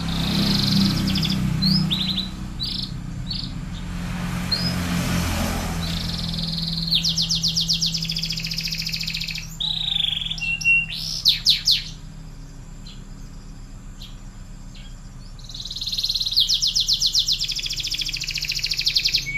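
Domestic canary singing: scattered chirps and short phrases, then long rapid trills of fast repeated notes, one about seven seconds in and another from about sixteen seconds in. A steady low hum runs beneath.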